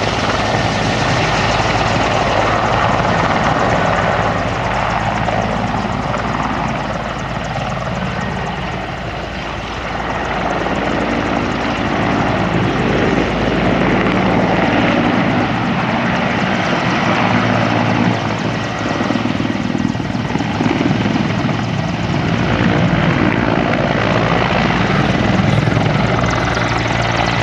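Mil Mi-24 helicopter flying its display: the steady, loud beat of its main rotor over the whine of its twin turboshaft engines, easing slightly about nine seconds in and then building again.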